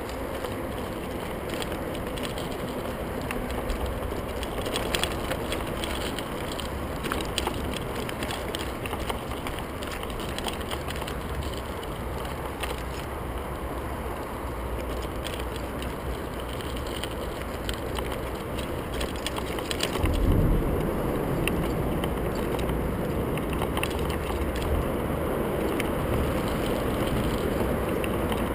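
Merida TFS 800-D full-suspension mountain bike riding over a gravel and dirt trail: steady tyre noise with frequent clicks and rattles from the bike over bumps. A heavier jolt about two-thirds of the way through, after which the rolling noise is a little louder.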